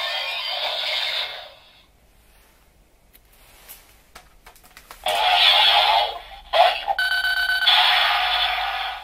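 Kamen Rider Chalice toy (Chalice Arrow with Chalice Rouzer) playing electronic sound effects through its small speaker. A burst of effects cuts off about a second and a half in, followed by a few plastic clicks from handling. The effects start again about five seconds in, with a short run of steady beeping tones near seven seconds.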